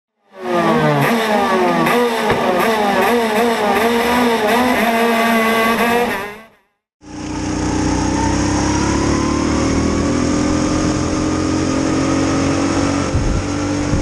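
An engine revving hard, its pitch swinging up and down in quick waves, cutting off about six seconds in. After a short gap, a rental go-kart's engine heard onboard, running at high revs with its note climbing slowly as the kart accelerates.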